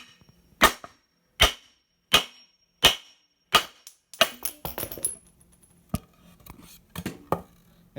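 Hammer blows on a block of wood held against a hand truck wheel rim, driving the wheel and its push-on cap retainer off the axle. There are sharp, loud strikes about every 0.7 s, then a quick cluster of knocks a little past halfway, one more blow, and a few lighter knocks near the end.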